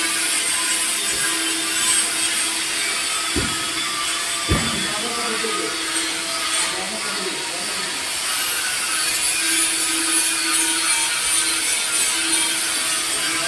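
Welding arc burning steadily on a pipe joint: a steady rough hiss over the welding machine's hum, with two short low thumps near the middle.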